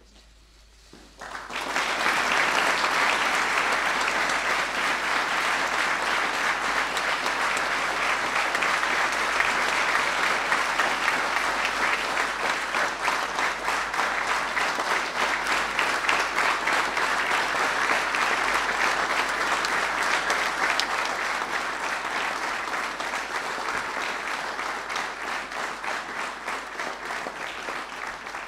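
Audience applauding: many hands clapping together. It starts abruptly about a second and a half in, holds steady, and eases off slightly near the end.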